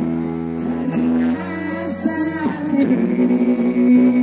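Amplified live music with singing into microphones, the voices holding long notes over a steady accompaniment.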